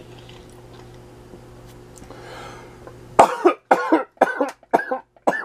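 A man coughing hard in a quick run of about six coughs, starting about three seconds in, as food goes down the wrong way mid-bite. Before the coughs there is only a faint steady hum.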